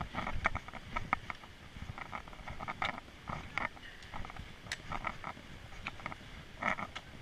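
Hikers' footsteps scuffing and crunching on a rocky dirt trail: an irregular run of short crisp steps and scrapes, several a second.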